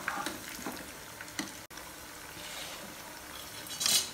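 Corn tikkis deep-frying in hot oil in a kadhai: a steady bubbling sizzle, with a few light knocks near the start and a brief louder hiss near the end.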